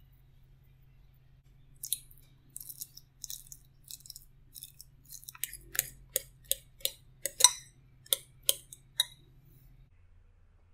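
Metal fork mashing banana in a glass bowl: soft squishing strokes, then a run of sharp clinks as the fork hits the glass, about two or three a second, the loudest a little past seven seconds in.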